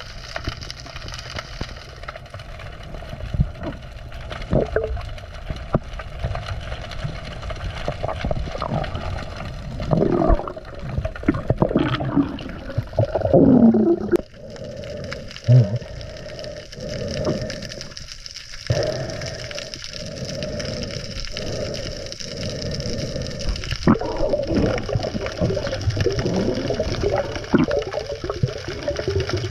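Water gurgling and sloshing around the camera's microphone, with bubbling.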